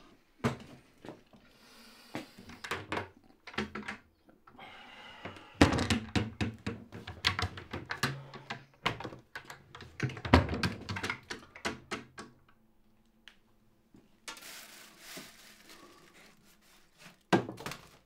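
Kitchen handling clatter: a run of knocks, clicks and thunks as wooden cupboard doors are opened and things inside are moved about, densest in the middle. A short hiss comes after it, then one louder knock near the end.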